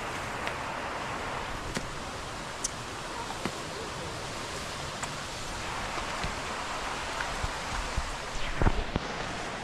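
Steady rush of flowing water, with scattered sharp clicks and a louder knock near the end.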